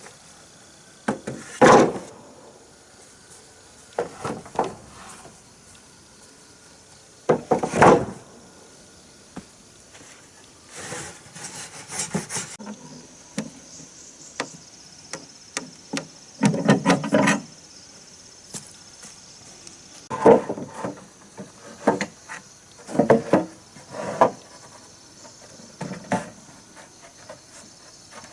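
Wooden boards or timbers being knocked and shifted, a heavy wooden knock or short rattle every few seconds at irregular intervals, over a steady high chirping of insects.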